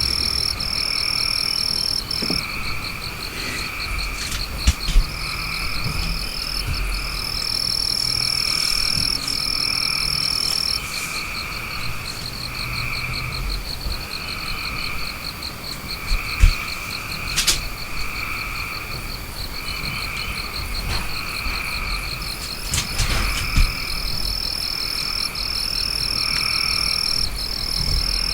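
Chorus of frogs calling in repeated croaking pulses about once a second, over a fast high trill and a high steady whine that breaks off and resumes. A few short knocks stand out.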